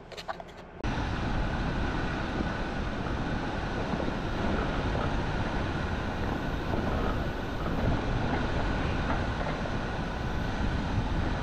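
Steady noise of a vehicle under way, with engine and tyre rumble, cutting in abruptly about a second in.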